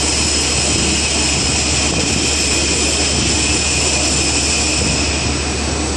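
Steel plate being edge-milled on a CNC drilling machine with a right-angle milling head: the cutter runs steadily, giving a loud, continuous machining noise with several high, steady whining tones on top.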